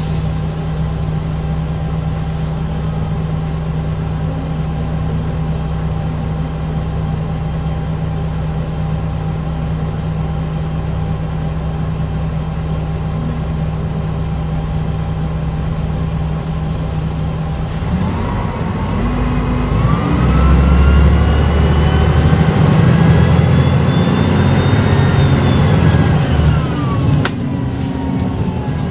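Bus with a Volvo TD102KF turbo diesel engine and Voith DIWA automatic gearbox idling steadily, then pulling away about 18 seconds in: the engine note grows louder and high gearbox and turbo whines rise in pitch, and a whine drops sharply near the end.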